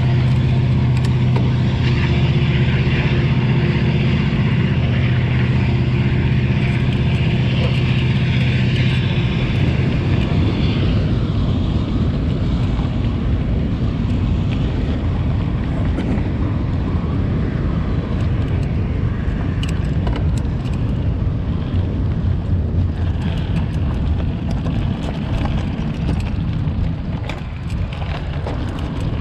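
Mountain bike rolling over a dirt track, heard from a handlebar-mounted action camera: a constant low rumble of tyres and wind on the microphone. A steady low engine-like hum sits under it and fades out about ten seconds in.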